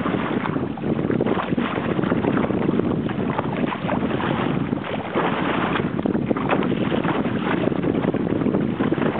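Steady wind buffeting the microphone over water sloshing and splashing around a paddled kayak.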